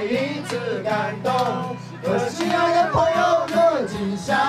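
Several men singing together into microphones, with an acoustic guitar accompanying them.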